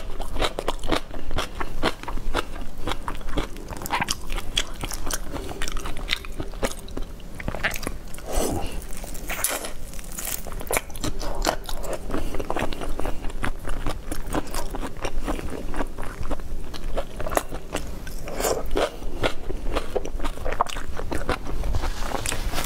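Close-miked eating sounds: a whole marinated shrimp being bitten and chewed, with many small crunching clicks from the shell and wet mouth sounds in quick succession.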